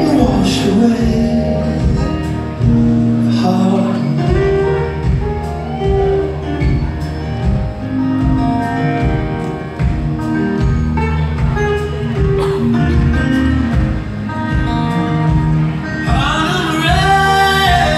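Rock band playing live, heard from the audience in a large hall: guitars over bass and drums, with a sung vocal line coming in near the end.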